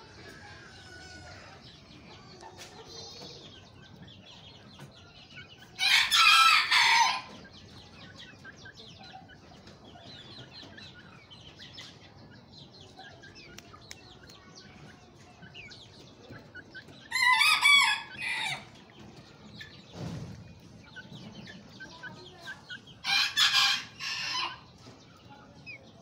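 Rooster crowing three times, each crow a second or so long and spaced several seconds apart, with soft clucking and chirping from the flock in between.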